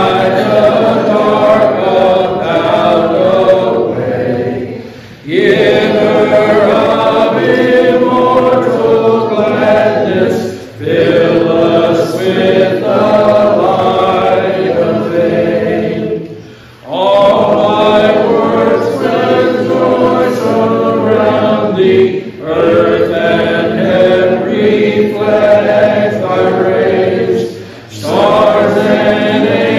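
A hymn sung a cappella, with no instruments. A man's voice leads at the microphone and a group of voices joins in. The singing comes in long phrases with short breaks between them, about every five to six seconds.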